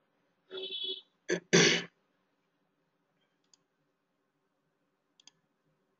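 A few clicks of a computer mouse in the first two seconds, followed by a couple of faint ticks.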